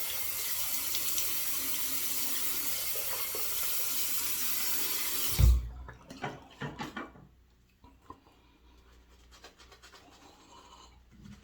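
Bathroom sink tap running steadily for a quick rinse between shaving passes, shut off about halfway through with a thump. A few short splashes and faint handling noises follow.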